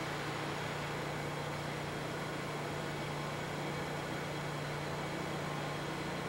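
Machinery running with a steady low hum over an even hiss.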